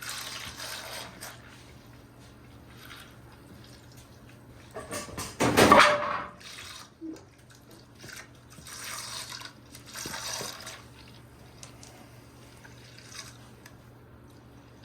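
Antifreeze draining from the oil pan of a Chevrolet 305 small-block V8 into a small bucket, splashing and trickling in bursts, with one louder burst about halfway through. Coolant pouring out of the crankcase in place of oil is the sign of a blown engine letting coolant into the oil.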